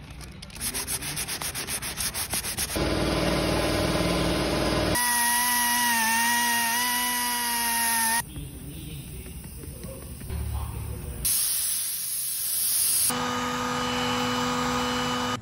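Workshop power tools in short cuts: rapid rhythmic rasping, then a small pneumatic palm sander running with a steady high whine as it sands a leather car seat. Near the end a heat gun blows with a steady motor hum.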